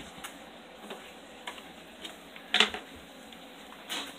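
A few light clicks and taps in a small room, with one louder, brief knock about two and a half seconds in and another near the end.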